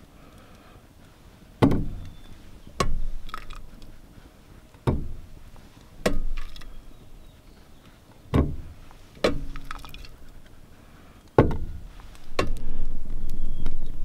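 Metal tongs knocking and clinking against a steel pot and an enamel plate while carrots are lifted out and served, about eight separate knocks, some with a brief ring. A rushing noise builds near the end.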